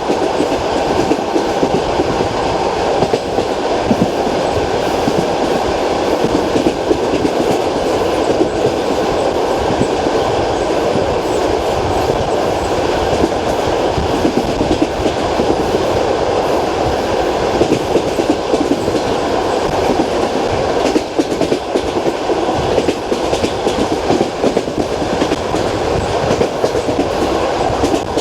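Passenger train wheels clattering steadily over the rail joints of jointed track, with a continuous rumble, heard from inside the carriage of a moving long-distance train.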